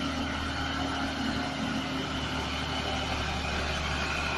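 Mitsubishi Fuso truck's diesel engine running steadily under load, hauling another truck on its bed.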